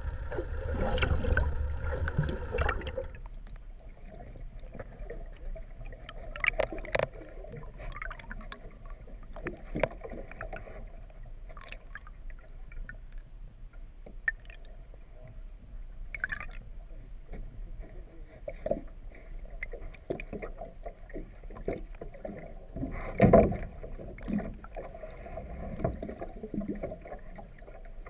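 Underwater recording: a boat motor's steady hum for the first three seconds, then muffled water noise with scattered clicks and knocks, loudest about 23 seconds in.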